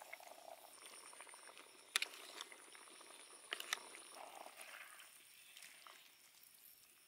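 Braising liquid simmering in a metal wok around a whole chicken, quietly and fading toward the end. A metal utensil clicks sharply against the wok about two seconds in, then twice more about a second and a half later.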